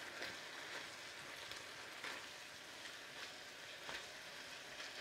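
Stir-fry of sliced peppers frying in a pan, a faint steady sizzle, with a few soft taps and clicks.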